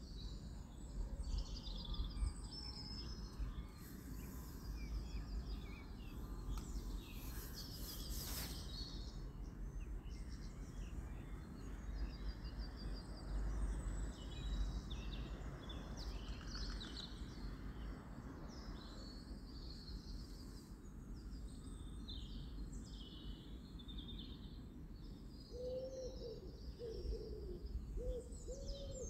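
Small birds chirping on and off over a steady low background rumble. Near the end a dove coos several times in low, arched notes.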